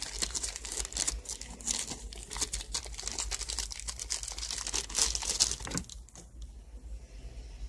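A thin wrapper crinkling and crackling as it is pulled off a coiled USB cable, the crinkling stopping about six seconds in.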